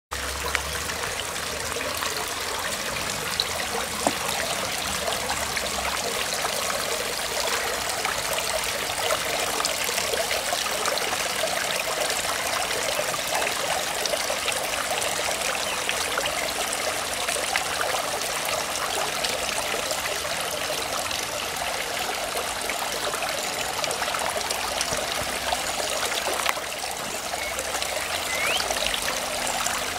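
Pump-fed water trickling steadily over stones into a garden pond, a light continuous splashing at low flow.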